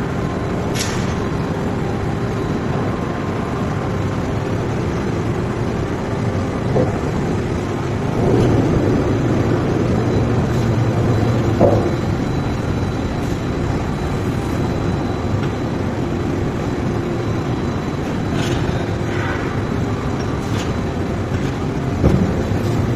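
Forging-shop machinery running with a steady noise and a low hum, broken by a few sharp metallic knocks.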